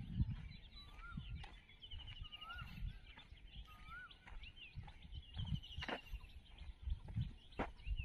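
Birds calling outdoors: a short rising-and-falling whistled note repeated several times in the first half, and a faster, higher trill heard twice, over a low uneven rumble and scattered clicks.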